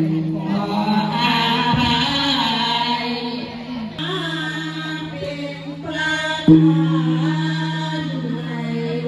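Buddhist chanting in unison: a steady droning chant with wavering voices above it, changing abruptly about four and about six and a half seconds in.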